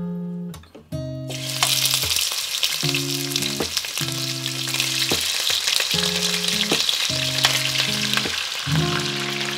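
Raw bone-in mutton pieces going into hot oil in a kadhai and sizzling as they start to fry; the sizzle starts about a second and a half in and then holds steady.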